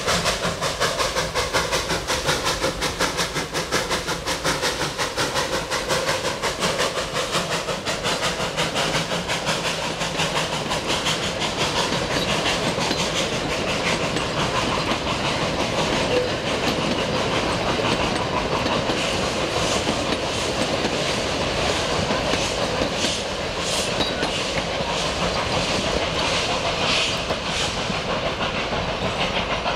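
Puffing Billy narrow-gauge steam locomotive pulling away under load with a steady beat of exhaust chuffs. It is followed by its train of carriages rolling past, the wheels clicking rhythmically over the rail joints in the second half.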